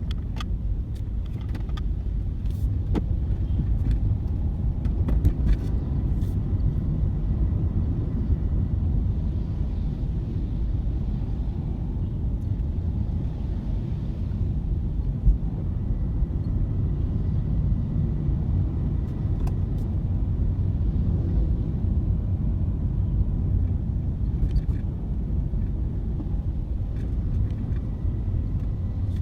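Steady low rumble of a car on the road, with a few faint clicks.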